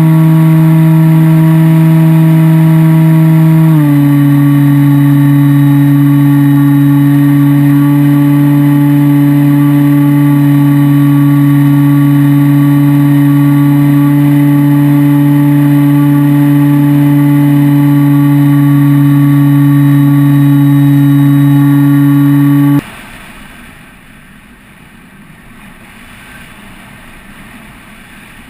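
Electric motor and propeller of an EasyStar II RC plane, heard from on board: a loud, steady whine that drops slightly in pitch about four seconds in as the throttle eases back. It cuts off suddenly several seconds before the end, leaving only a faint rush of air as the plane glides down and lands.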